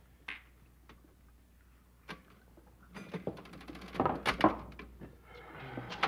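Clatter of glasses and bottles knocking on a wooden bar top: a few single light knocks, then a quick run of clicking and several sharp knocks about three to four and a half seconds in.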